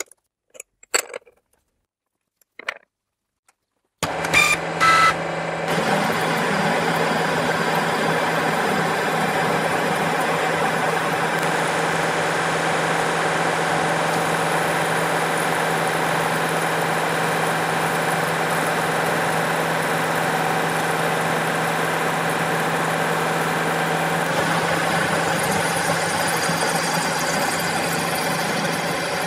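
A few faint clicks, then from about four seconds in a milling machine runs a roughing end mill through a metal block with coolant: a loud, steady cutting noise over a constant hum, with a couple of knocks as the cut begins.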